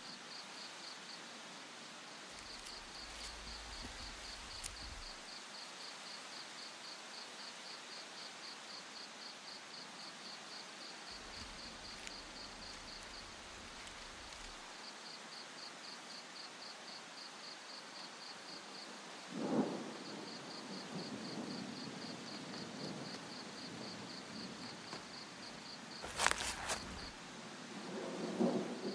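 Faint chirping of an insect: a rapid run of high pulses in repeated spells with short breaks, over a low background hiss. A rustle comes about two-thirds of the way in, and a brief louder noise near the end.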